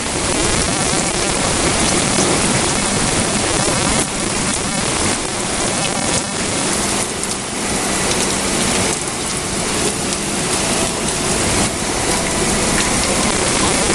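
Heavy rain falling steadily during a thunderstorm, a dense, even hiss made of many small drop impacts.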